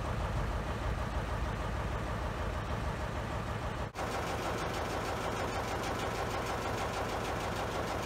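Small diesel shunting locomotive idling while standing still, a steady low engine rumble with a brief break about four seconds in.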